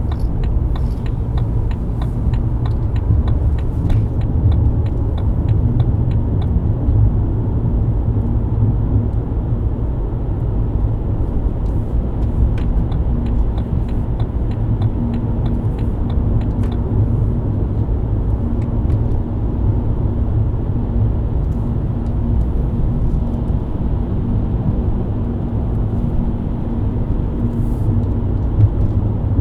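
BMW E90 323i's inline-six engine and tyre rumble while cruising at a steady speed, with a held low hum. Quick light ticks come about three to four a second for several seconds twice.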